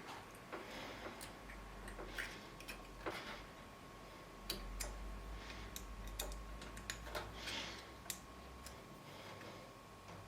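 Faint, irregular clicks and short scrapes of spade wire connectors being handled and pushed onto the terminals of an oven function selector switch, over a faint steady high hum.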